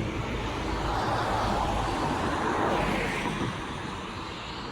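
Road traffic noise: a passing car's tyre and engine noise swells and then fades away.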